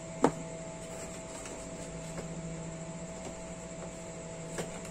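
Foam RC airplane fuselage being handled and its parts worked open: one sharp click about a quarter second in, a few faint ticks, and a softer click near the end, over a steady electrical hum.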